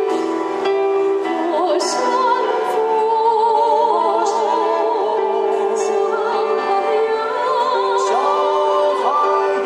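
A man and a woman singing a slow song together with vibrato, accompanied by held chords on an electric keyboard.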